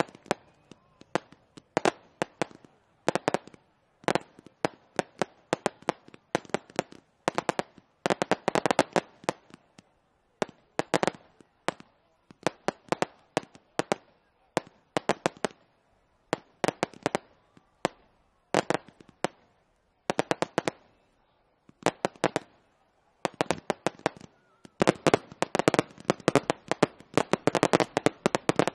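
Fireworks display: aerial shells and rising comets going off in quick clusters of sharp bangs and crackles, about one cluster a second. The firing thickens into a dense, nearly continuous barrage in the last few seconds.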